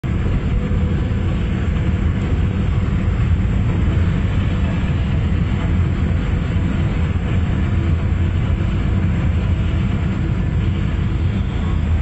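Steady low rumble and hiss of a car driving on a rain-wet road, heard from inside the car.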